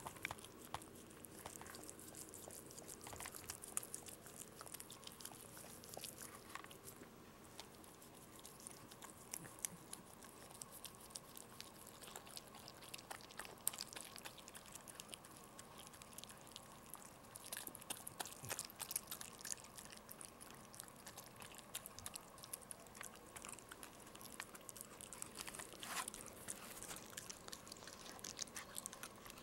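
Maltese mother dog licking and mouthing at a newborn puppy's birth sac while whelping: many faint, wet clicking and smacking sounds, over a faint steady hum.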